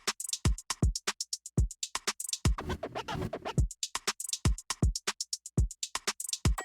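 Background electronic dance music with a drum-machine beat: deep kick drums and ticking hi-hats, with a denser noisy swell about three seconds in.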